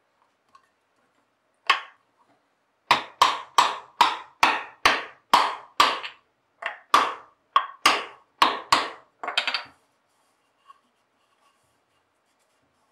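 A round mallet knocking a dovetailed drawer joint together for a rough dry fit: one blow, then after a short pause a run of about fifteen blows, two to three a second, wood on wood.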